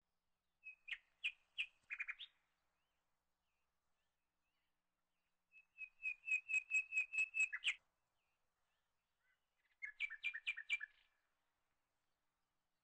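A bird chirping in three bursts of rapid, high repeated notes, about six a second, with the middle burst the longest.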